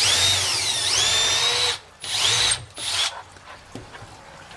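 Cordless drill boring a knob hole through a cabinet door via a drilling jig: one long run of the motor whose pitch dips and then climbs back to full speed, followed by two short bursts on the trigger.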